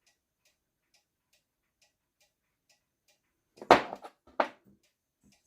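Faint ticking, about two ticks a second, then two loud metallic clanks near the end as metal engine parts from a disassembled moped engine are handled on a workbench.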